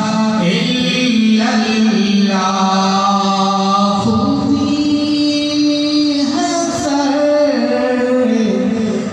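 A man's unaccompanied devotional chanting into a microphone, in long held notes that slide between pitches. It steps up to a higher held note about four seconds in and comes back down a couple of seconds later.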